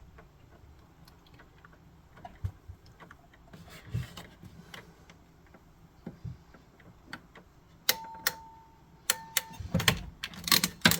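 Scattered small clicks and light metallic rattles from handling a connector pin, wires and a small hand tool, coming louder and closer together near the end, with two short squeaky tones among them.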